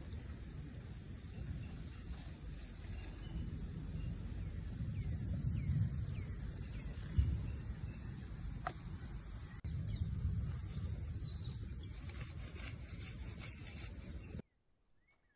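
Outdoor ambience: a steady high-pitched drone of insects chirring, over a low rumble, with a few faint bird chirps. It all cuts off suddenly near the end.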